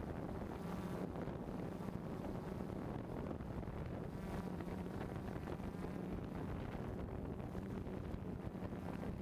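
Camera drone hovering: its motors hum steadily at a low pitch under wind noise on the onboard microphone.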